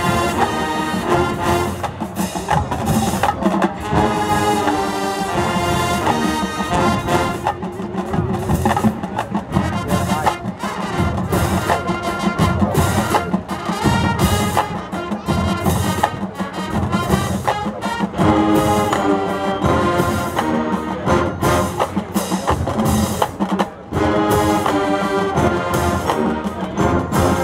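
High school marching band playing full out: brass with sousaphones carrying the low line over a drumline and bass drums, with clarinets in the wind section.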